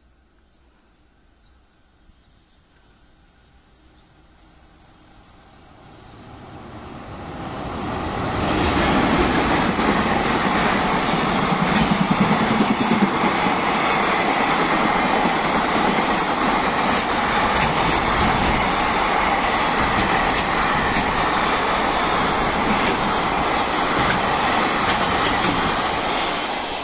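Container freight train hauled by an EH500 electric locomotive passing through a station without stopping: it grows louder over several seconds as it approaches, then a long steady rumble and rattle of wheels on the rails as the container wagons go by, easing off at the very end.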